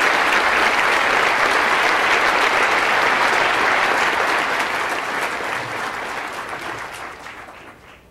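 Large audience applauding, steady at first and then dying away over the last few seconds.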